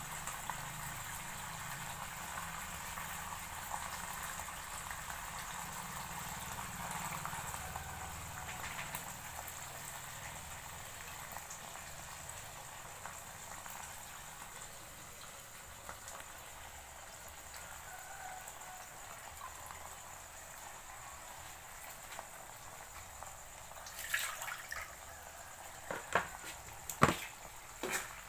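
Sauce simmering in a wok with a steady low bubbling that slowly grows quieter. Near the end, a metal ladle knocks against the wok several times as stirring begins.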